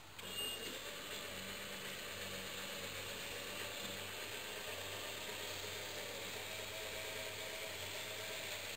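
Electric walk-behind tractor running steadily while it pushes and grades dirt, with a low steady hum under a mechanical whir.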